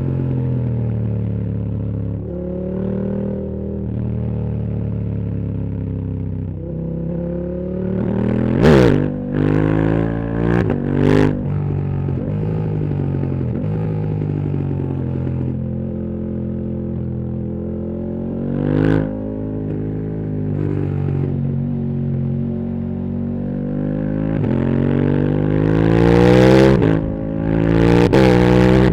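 KTM 1290 Super Duke R's V-twin engine through a full titanium Akrapovic exhaust, revving up and down as the rider accelerates and changes gear. Sharp loud cracks from the exhaust come about nine seconds in, around eleven and nineteen seconds, and twice near the end.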